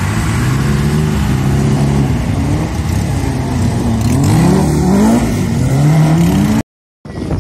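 Banger race cars' engines revving up and dropping back as they race round the track, several rising and falling engine notes overlapping. Near the end the sound cuts out for a moment, then a steadier engine note follows.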